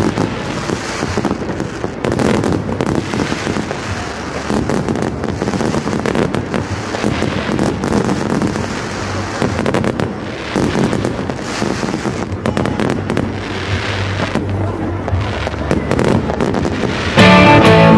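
Aerial fireworks going off: a dense, irregular run of bangs and crackling. Guitar music cuts in suddenly near the end.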